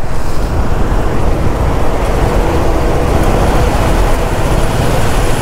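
Motorcycle ridden at steady speed: a constant rush of wind on the microphone over the running engine.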